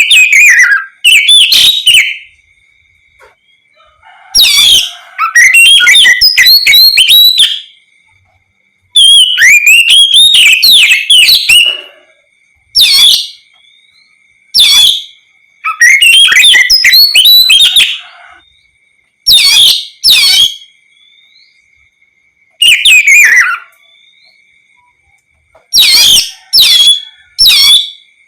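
Oriental magpie-robin (kacer) singing loud, rapid whistled phrases in bursts of about half a second to three seconds, with short pauses between them. A faint steady high tone runs underneath.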